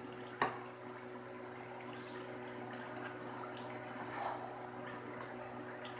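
Beef karahi curry simmering faintly in a steel karahi, over a steady low hum. There is a single sharp knock about half a second in and a brief soft scrape about four seconds in.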